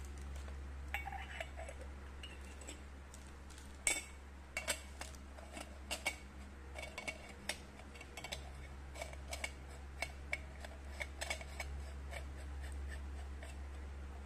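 Stainless steel parts of a Bialetti Venus moka pot clinking and scraping as they are handled and the upper chamber is screwed onto the boiler. There is an uneven run of small metallic clicks and ticks, with one sharper clink about four seconds in.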